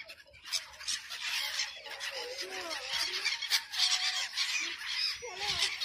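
A flock of sea birds, gulls, calling over one another: many short rising-and-falling squawks overlapping throughout.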